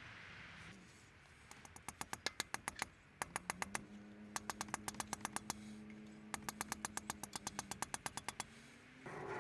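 Rapid sharp clicking in four quick runs of about ten clicks a second, over a steady low hum that starts about three seconds in and rises slightly just before the end.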